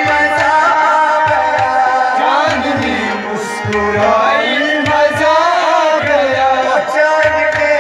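Kashmiri folk music: a harmonium holds steady reedy chords, hand drums keep a quick beat of low strokes, among them a clay tumbaknari goblet drum, and a male voice sings, rising and wavering through the middle.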